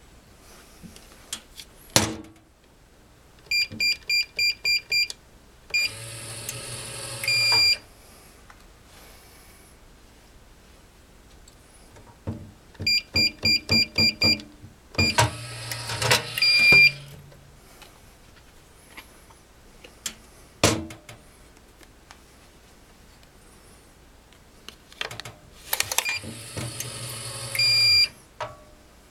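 Electronic hotel room safe being worked: a quick run of keypad beeps as a combination is keyed in, then the motorized lock whirring for about two seconds and closing with a beep. This happens twice, a third whirr comes near the end, and a couple of sharp clicks fall in between.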